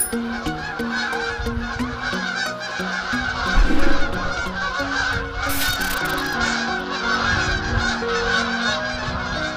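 A large flock of geese honking continuously, many birds calling over one another. About three and a half seconds in there is a loud low thump, and a brief hiss follows about two seconds later.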